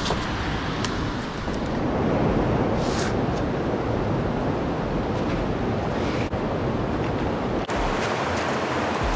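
Steady rushing of river water, with a few faint clicks over it.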